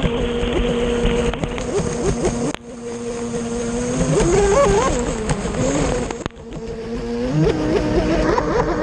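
Brushless electric motor of an RC racing boat, a Leopard 4074 1400KV on 6S, running at speed, heard from on board over a rush of water and wind. Its pitch holds steady, then swoops upward a couple of times a second, and the sound drops out abruptly twice.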